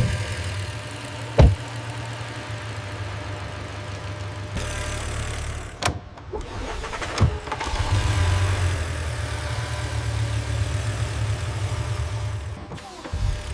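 Steady low machine hum with a few sharp knocks, about a second and a half, six and seven seconds in. The hum shifts abruptly several times and is loudest in the second half.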